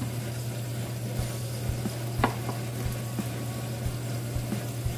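Tomato sauce frying down in a pan with a soft sizzle, and a steady low hum. A chef's knife knocks a few times on a wooden cutting board as it cuts a garden egg (eggplant), with one sharper knock about two seconds in.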